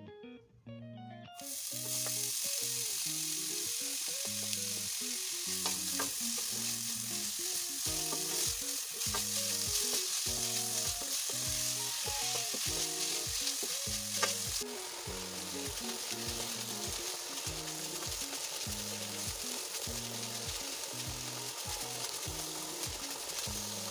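Chopped onion and leek sizzling in hot oil in a nonstick frying pan as they are stirred with a wooden spatula; the sizzle starts suddenly a little over a second in. About two-thirds through there is a sharp knock and the sizzle drops somewhat, over plucked background music.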